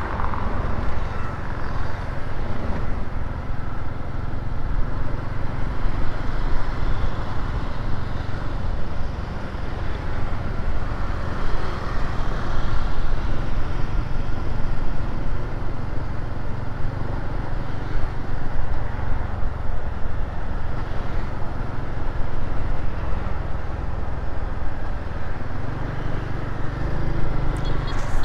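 Riding a motor scooter through city traffic: steady engine and road noise with low wind rumble on the microphone.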